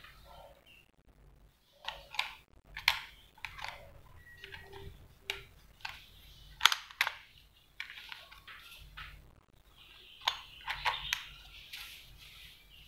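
Irregular clicks and knocks of a Makita cordless drill's plastic housing being picked up and handled, with a few sharper clacks about 3 and 7 seconds in; the motor is not running.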